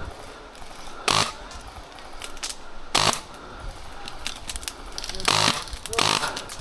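Well Pro KS1 airsoft gun with DSG gearbox firing short bursts at about 50 BBs a second, each burst a buzzing rattle. There are four bursts: about a second in, about three seconds in, and two close together near the end.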